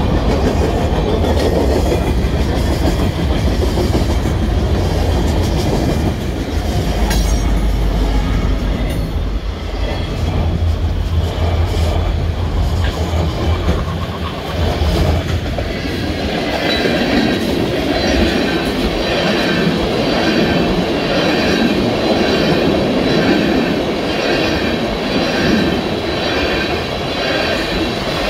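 CPKC freight train cars rolling past on the rails: a steady rumble of wheels on track. About halfway through, a regular clacking of the wheels sets in, roughly once a second.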